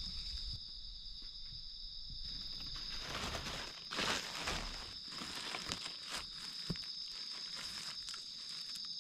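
Dry leaf litter rustling and crackling as a gloved hand sweeps leaves aside and a knife scrapes into the soil, loudest about four seconds in, over a steady high insect trill.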